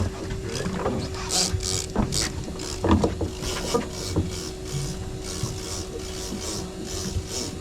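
Fishing reel working, giving short ratcheting clicks that repeat about two to three times a second, over a steady low hum.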